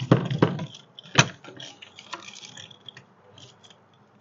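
Clicks and rattles of a motorhome's entry-door lock and handle being worked with a key. A few knocks come at the start and a sharp click about a second in, then smaller clicks; the lock is stubborn and slow to give.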